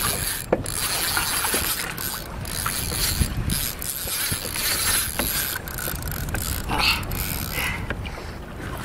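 Spinning reel being cranked against a hooked redfish, its gears and handle giving small irregular clicks, over steady low wind noise on the microphone.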